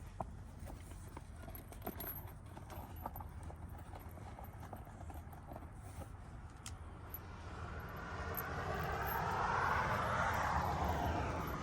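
Light taps and scrapes of hand work on asphalt roof shingles and their nails. Near the end a passing vehicle's noise swells and fades.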